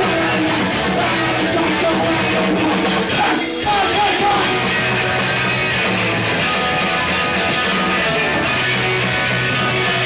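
Hardcore punk band playing live, guitar-driven and loud, with a brief dip in the music about three and a half seconds in.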